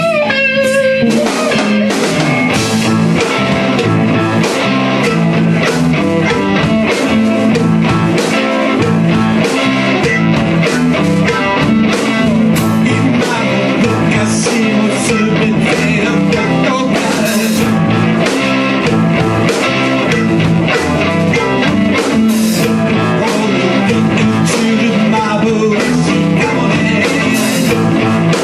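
A rock song playing, led by guitar over a steady drum beat.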